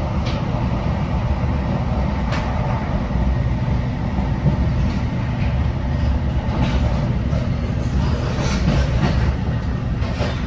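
Steady rumble inside an NJ Transit MultiLevel passenger coach running at speed, heard from the middle level, with a few sharp clicks scattered through it.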